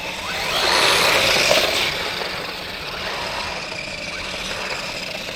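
Steady vehicle running noise that swells louder for about a second and a half near the start, then settles.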